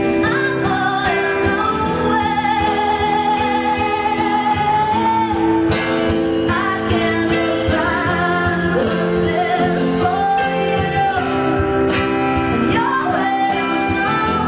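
A woman singing live with wide vibrato on long held notes, accompanied by acoustic guitar.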